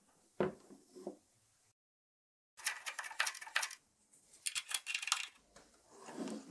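Handling a wood-burning pen: a couple of soft knocks, then a run of small metallic clicks and scrapes as a brass burner tip is screwed into the pen's barrel, ending in a soft rustle.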